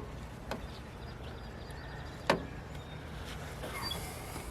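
A few sharp clicks, the loudest about two seconds in, from hands working on the RV furnace as its replacement control board goes in, over a steady low hum of road noise. Faint bird chirps come in near the end.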